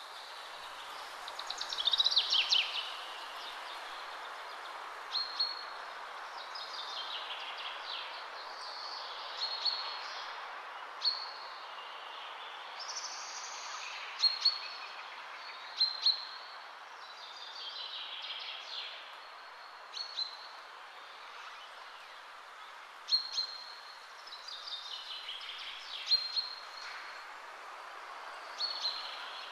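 Birds chirping and calling again and again, short high chirps and falling calls every second or two, over a steady hiss.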